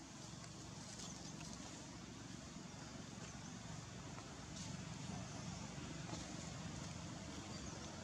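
Steady low outdoor background rumble, a little louder from about halfway through, with a few faint clicks.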